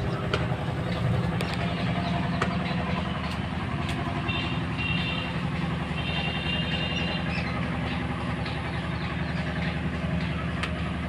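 An engine running steadily, a low even drone, with a few faint clicks.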